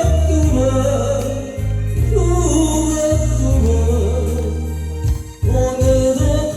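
A Korean song sung over a loud backing track, the melody gliding over long held bass notes. About five seconds in, the bass changes to a quick repeated beat.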